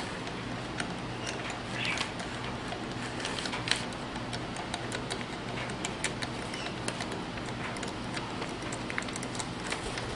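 Scattered light clicks and taps of the plastic and metal parts of a BMW X5 rear air suspension pump being handled and taken apart by hand, over a steady low hum.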